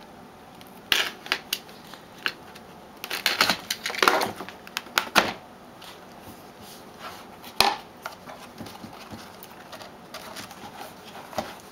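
Crackling and rustling of packaging being torn and handled as a sealed trading-card box is opened, in irregular bursts, with one sharp click or snap later on.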